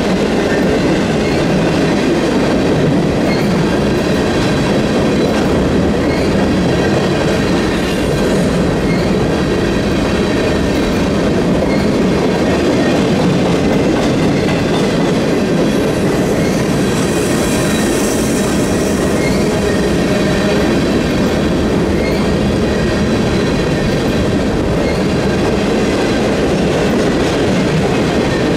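Empty freight flat cars rolling past at speed: a steady rumble of steel wheels on the rails with a faint clickety-clack of wheels over rail joints. About 17 seconds in, a brief high-pitched wheel squeal rises above the rumble.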